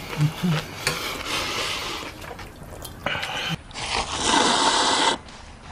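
A person slurping ramen noodles and broth in noisy slurps, with the loudest and longest slurp drawn in during the last two seconds.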